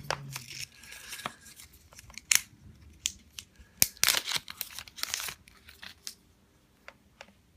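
Protective plastic wrapping being peeled and torn off a new Apple Watch, crinkling in irregular spurts and dying away about six seconds in.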